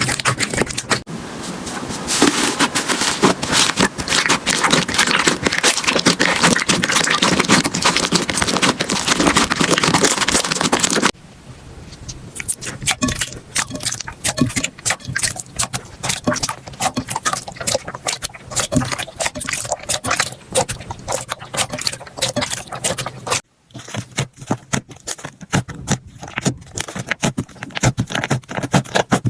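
Slime being squeezed and pressed by hand, with dense, loud crackling and popping. About eleven seconds in it switches abruptly to sparser, quieter sticky clicks, and near the end, after a short break, another run of clicks begins.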